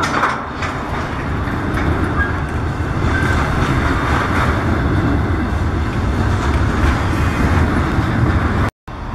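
Double-stack container freight train rolling past close by: a steady rumble of steel wheels on rails with light clacks over the rail joints. The sound drops out for a moment near the end.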